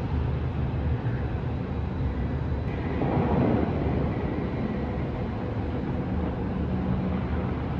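Steady low rumbling drone of a running vehicle.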